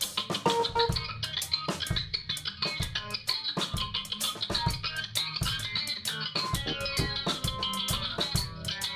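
A live band plays instrumental music: electric bass, a drum kit with frequent cymbal and drum hits, and an electric keyboard.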